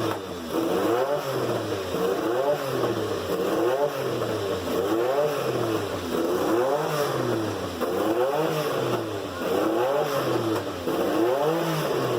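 Porsche 956's twin-turbo flat-six racing engine being revved repeatedly, its pitch rising and falling roughly every second and a half as the throttle is blipped.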